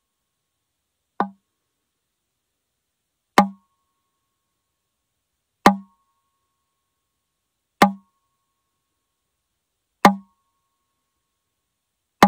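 Impulse hammer tapping the bridge of a bowl-back mandolin, one sharp tap about every two seconds, each followed by a brief low ring of the instrument's body and a faint higher ring. The first tap is softer. There is dead silence between the taps. These taps put an impulse into the mandolin for a frequency-response measurement.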